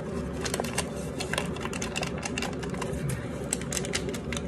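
Crinkling of a Swiss Miss hot cocoa packet being squeezed and handled, a quick irregular run of small crackles.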